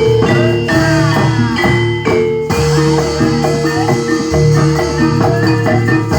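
Gamelan accompaniment for a jatilan horse dance: metallophones strike a running melody of short, ringing notes over low sustained tones and drum strokes.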